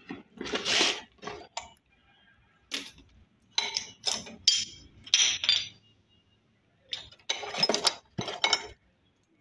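Rusted motorcycle chain and sprocket clinking and rattling as they are handled in a cardboard box, in a series of short bursts, along with cardboard flaps rustling.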